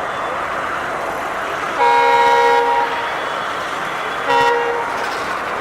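Locomotive horn: one long blast of about a second, then a short blast about a second and a half later, over a steady rushing noise.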